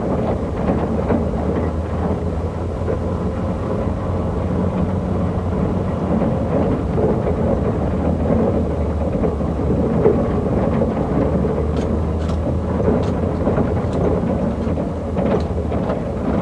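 A steady low rumble with a hiss over it, with a few faint ticks about three-quarters of the way through.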